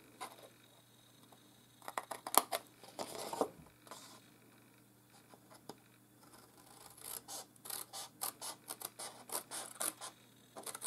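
Scissors snipping through cardstock, cutting off a flap: a few crisp snips about two seconds in, then a quick run of snips from about seven seconds on.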